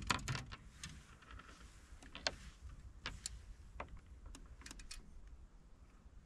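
Scattered small clicks and ticks from fishing rods and reels being handled, loudest just after the start and again about two seconds in, over a low steady rumble.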